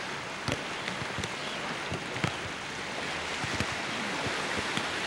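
Several sharp slaps of a volleyball being struck by hands and arms during a beach volleyball rally, roughly a second apart, over a steady hiss.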